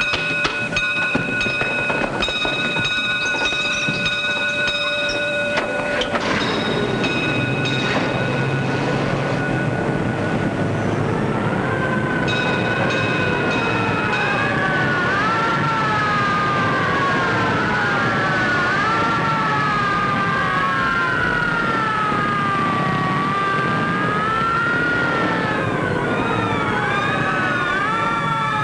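Firehouse alarm bell ringing steadily for about six seconds, followed by a few separate strikes. From about twelve seconds in, fire engine sirens wail, several at once, rising and falling and overlapping.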